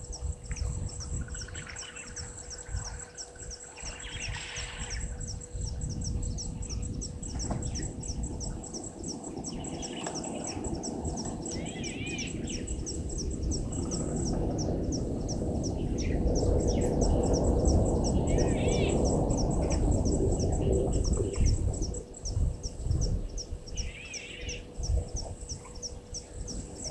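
Bush ambience: an insect chirps in a rapid, even, high-pitched pulse throughout while birds call now and then. Under it runs a low rumbling noise that swells through the middle and is loudest about two-thirds of the way in.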